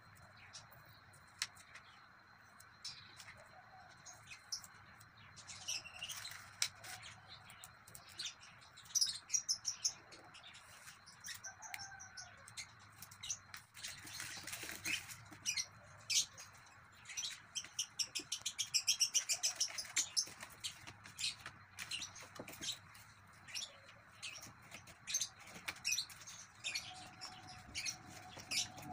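Stiff cardboard being handled and folded into a box: scattered clicks, taps and rustles as the panels are bent along their creases and pressed together, with a quick run of crackly ticks about two-thirds of the way through.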